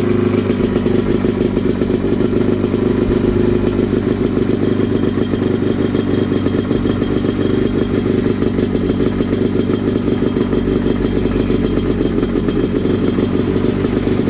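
Dirt bike engine idling steadily close by, its pitch holding level with no revving.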